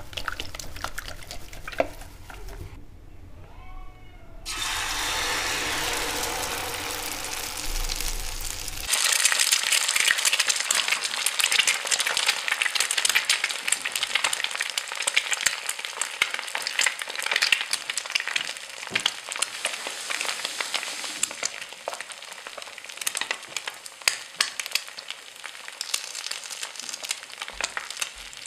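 Beaten egg batter frying in a pan: a dense, crackling sizzle that sets in loudly about nine seconds in and continues. Before it, the egg mixture is stirred in a plastic bowl, then a softer steady hiss.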